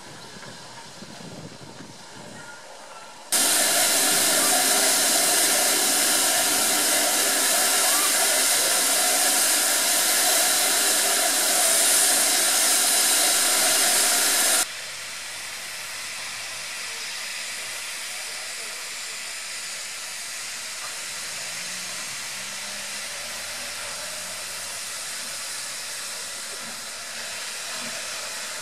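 Steam hissing from standing steam locomotives. A loud hiss starts abruptly about three seconds in and cuts off about fifteen seconds in, then a quieter steady hiss carries on.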